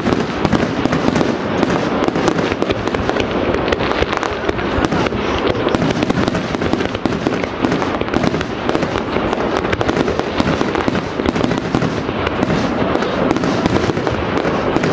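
Aerial fireworks display: a dense, continuous barrage of shell bursts, many overlapping bangs and crackles with no pause between them.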